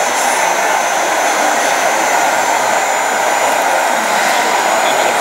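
Steady whirring hiss of a 1/14-scale RC hydraulic excavator's electric pump running while the excavator digs and loads grit, with a faint high whine over it.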